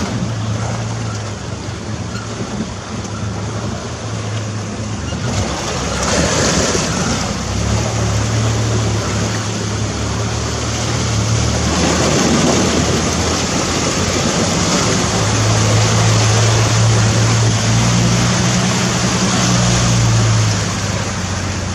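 Off-road vehicle driving through floodwater: the engine runs under load while water rushes and splashes around the wheels. The splashing grows louder about five seconds in, and the engine swells twice.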